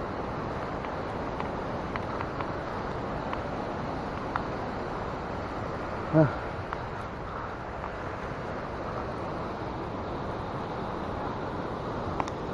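A steady rushing outdoor noise with a few faint clicks, and a short voice-like grunt about six seconds in.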